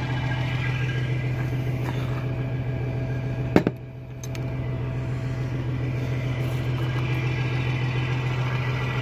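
Diesel truck engine idling with a steady low hum. About three and a half seconds in there is one sharp click, and the sound goes dull for about half a second after it.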